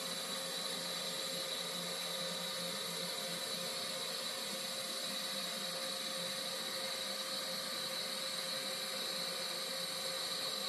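TIG welding arc hissing steadily with a steady high whine over it, as tool steel filler rod is fed into the weld puddle.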